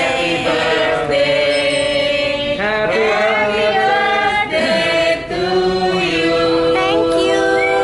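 Several voices singing a birthday song together, holding long notes. The singers are restaurant staff bringing a birthday cake with lit candles to the table.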